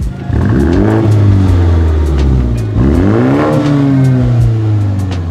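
BMW M135i's 2.0-litre turbocharged four-cylinder revved twice through a Cobra GPF-back aftermarket exhaust, each time the pitch climbing quickly and then falling back more slowly.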